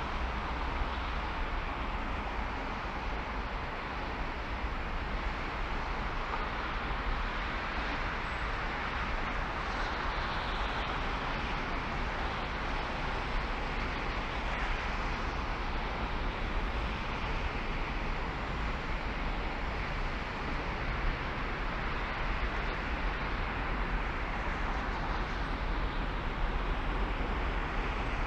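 Steady road and wind noise of a car driving: a constant low rumble under a broad hiss that swells slightly a few times.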